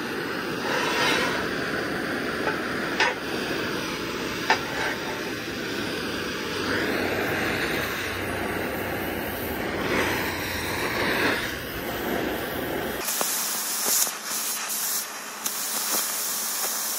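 Oxy-fuel cutting torch flame hissing steadily as it heats steel plate, with a few sharp ticks. About 13 seconds in the sound changes abruptly to a higher, thinner hiss as the torch cuts through the steel.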